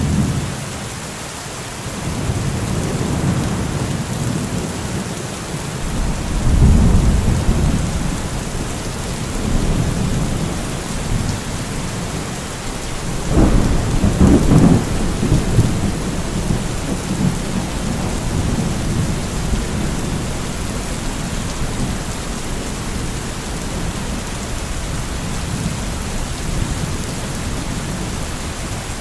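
Steady rain falling, with rolling thunder rumbling low several times; the loudest roll comes about halfway through.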